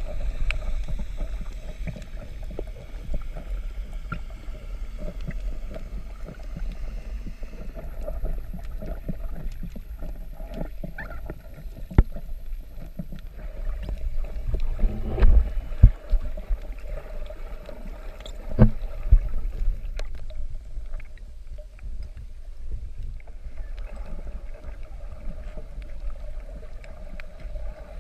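Muffled underwater sound picked up by a camera carried through the water while snorkeling: a steady low rumble of moving water, with scattered sharp clicks and a few louder knocks around the middle.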